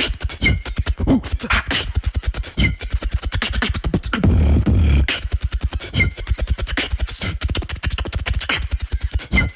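Solo beatboxing: a very rapid, dense stream of clicks and percussive mouth sounds, with a deep vocal bass swelling briefly about four seconds in.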